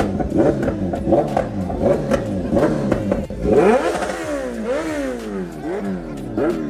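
Motorcycle engines revving at a bike meet-up. From about halfway in, one engine is blipped repeatedly: the pitch jumps up and falls back about twice a second. Before that, several revving engines overlap.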